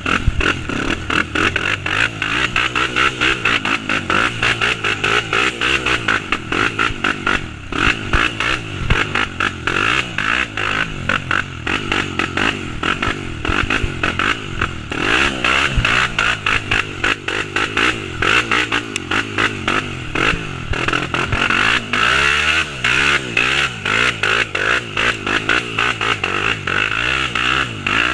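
Single-cylinder four-stroke trail motorcycle engine running under way, its revs rising and falling, with a few quick revs up and down about three-quarters of the way through.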